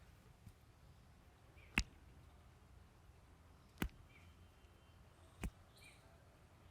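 Three sharp, short cracks roughly two seconds apart from a barber's hands working during a head massage, over a faint background of high chirps.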